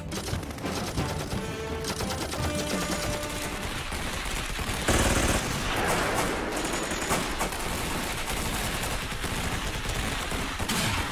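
War-film battle soundtrack: rapid gunfire and machine-gun fire with a music score underneath, the firing growing louder and denser about five seconds in.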